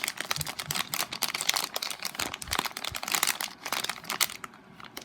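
Packaging handled by hand: crinkling and rustling with many quick small clicks and taps, dying down near the end.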